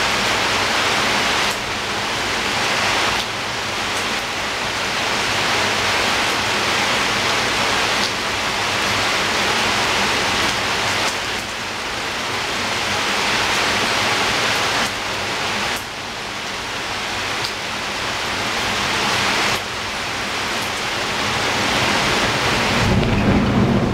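Steady rain falling against a window, an even hiss of many drops. A low rumble builds near the end.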